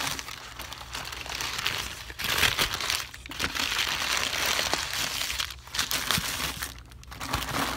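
Subway's paper sandwich wrapper crinkling and rustling as it is unfolded by hand from a sub, in several stretches with short pauses, loudest about two and a half seconds in.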